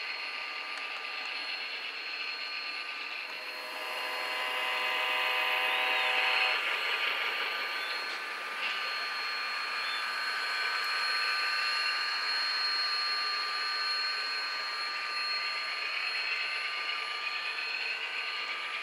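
HO scale model trains running on the layout: a steady whirring of the locomotive motors and wheels rolling on the rails, with a thin high whine. It gets louder for a few seconds about four seconds in.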